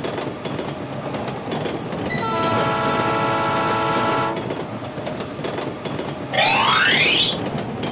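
Train sound effect: the steady rumble and clatter of a train running on rails. A train horn sounds for about two seconds a couple of seconds in, and a quick rising whistle-like sweep comes near the end.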